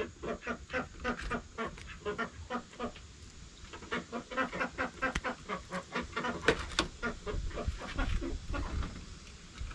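Chickens clucking, a flock giving many short calls in quick succession.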